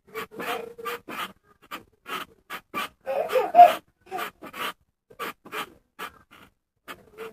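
A toddler's excited breathy giggles and huffs in quick short bursts, with a louder pitched squeal of laughter about three and a half seconds in.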